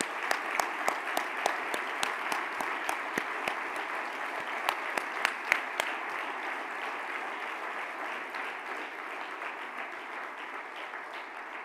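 A large audience applauding steadily, with a few louder, sharper claps close by during the first six seconds; the applause slowly dies away near the end.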